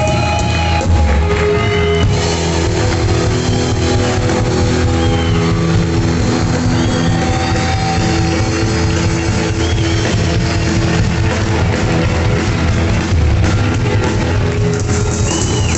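Rock band playing live, with electric guitar and drum kit in an instrumental passage.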